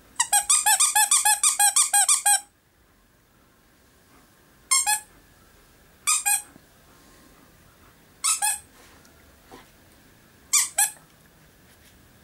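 Squeaker in a chewed-up plush dog toy squeaking under a German Shepherd's jaws: a fast run of about a dozen squeaks over two seconds, then four short double squeaks a couple of seconds apart. The squeaker is all but broken.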